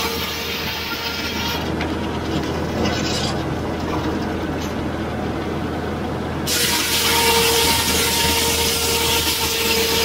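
Large circular sawmill headsaw cutting through a log, a steady loud sawing over the drone of the mill's power unit. It eases off a couple of seconds in as the blade runs clear of the wood, then bites into the next cut, sawing loudly again, about six and a half seconds in.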